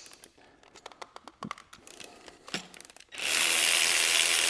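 Light clicks and knocks of tools being handled, then about three seconds in a cordless electric ratchet runs steadily for about two and a half seconds, undoing a bolt, and stops sharply.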